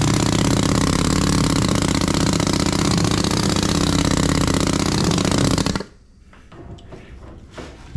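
Pneumatic sand rammer running, hammering rapidly as it packs molding sand into a wooden flask (the drag), then shut off suddenly about six seconds in. A few light knocks follow.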